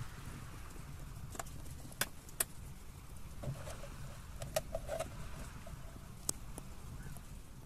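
Low steady rumble, with about six sharp clicks and light knocks from gear being handled in a small boat; the loudest come about two seconds in.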